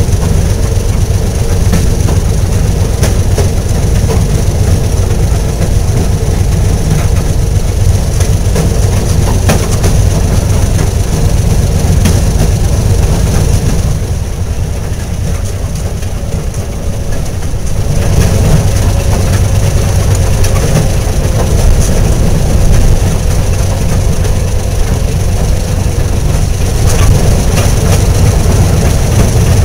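A railroad track motorcar (speeder) running slowly along the rails, heard from inside its cab: a steady engine drone with occasional clicks from the wheels over rail joints. The sound drops for a few seconds about halfway through, then comes back up.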